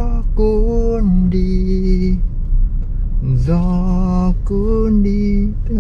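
A slow song with a voice singing long held notes, over the steady low rumble of a car driving.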